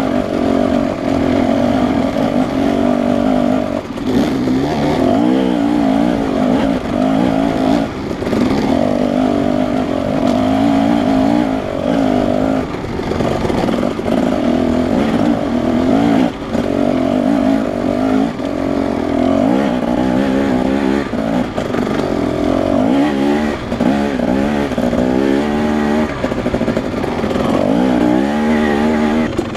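Husqvarna 300 two-stroke dirt bike engine running under load on a rocky trail, the revs rising and falling again and again with the throttle.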